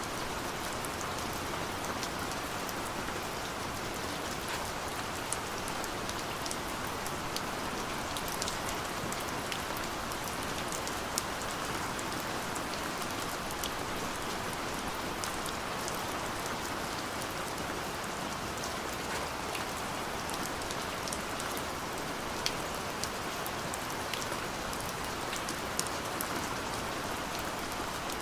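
Steady rainfall pattering on a surface, an even hiss with scattered sharper drop ticks throughout.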